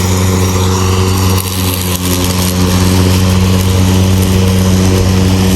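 EGO cordless battery-powered lawn mower running, its electric motor and blade giving a steady, even hum.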